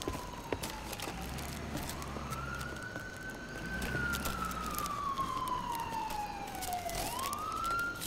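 A siren wailing, its pitch rising and falling slowly in long sweeps, with a quick rise near the end.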